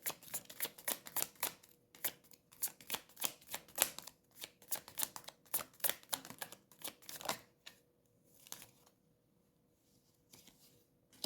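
Tarot cards being shuffled and handled: a quick run of short papery clicks and flicks for about seven seconds, then only a few faint ticks.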